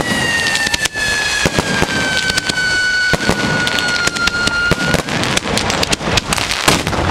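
Ground-level firecracker battery (batteria alla bolognese) going off: a fast, unbroken chain of loud firecracker bangs. A long whistle glides slowly down in pitch over the bangs and stops about five seconds in.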